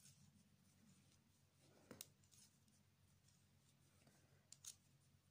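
Faint clicks of metal knitting needles tapping together as stitches are purled, over near silence: one tick about two seconds in and two quick ones near the end.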